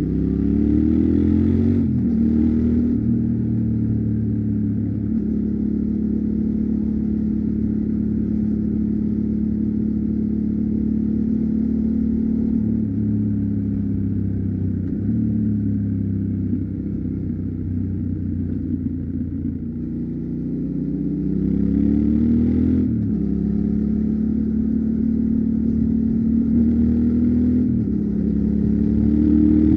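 Yamaha Ténéré 700's parallel-twin engine through its stock exhaust, running under way. Its pitch rises as it accelerates and drops at a gear change about 2 s in and again about 23 s in, with steady cruising between.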